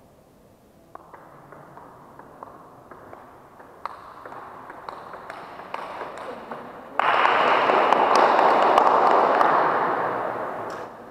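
Table tennis rally: the celluloid ball ticking sharply off the bats and table, a dozen or so hits coming gradually faster. About seven seconds in the point ends and a few spectators clap loudly for about four seconds, the clapping fading away.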